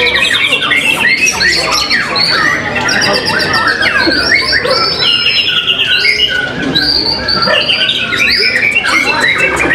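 White-rumped shamas singing over one another: a dense, unbroken mix of loud whistles, pitch glides, and fast repeated-note trills and rattles.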